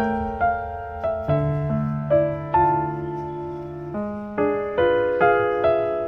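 Background music: a gentle solo piano piece, single notes and chords struck one after another, each ringing and fading.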